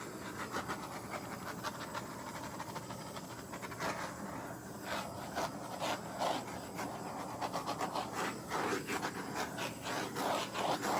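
Handheld gas torch burning with a steady hiss, flickering in level and getting a little louder in the second half, as the flame is passed over wet poured acrylic paint.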